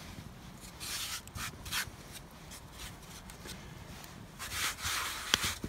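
Hands pressing and spreading floured bread dough on a wooden board: dry scuffing strokes, one about a second in and a longer one near the end, followed by a sharp click.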